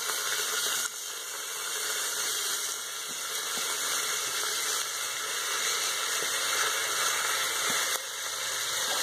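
Chopped vegetables sizzling in hot oil and mustard seeds in a pressure cooker: a steady hiss.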